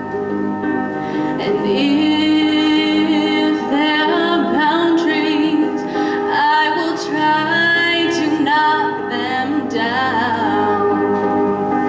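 A young woman singing a slow song into a microphone over instrumental accompaniment, her voice wavering in vibrato on held notes.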